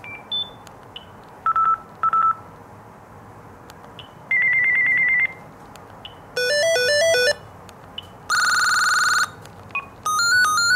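Gigaset cordless phone handset playing short previews of its ringtone melodies one after another as the melody list is scrolled: a fast repeated beeping trill, a stepped electronic tune, a buzzy tone, and another stepped tune starting near the end. Short single key beeps come between the previews.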